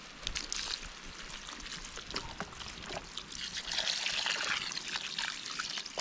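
Chicken stock poured from a carton into a large cast iron skillet of rice, sausage and vegetables, splashing steadily and growing louder about halfway through, with small scattered crackles.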